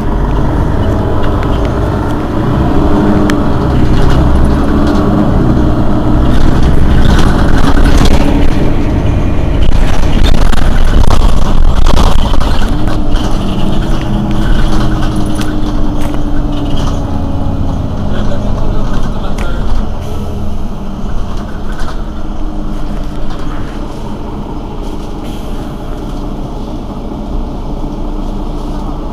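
Mercedes-Benz Citaro city bus engine running while the bus stands at a stop. The sound swells for a stretch in the middle, with engine tones sliding down, then settles lower near the end.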